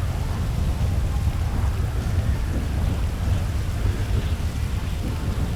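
Hard rain and wind: a steady rushing noise with a deep, continuous low rumble.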